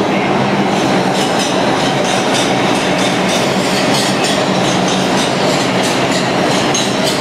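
New York City Subway R142-series express train running past the platform at speed: a loud, steady rumble with wheel clicks over the rail joints about twice a second and a low steady hum.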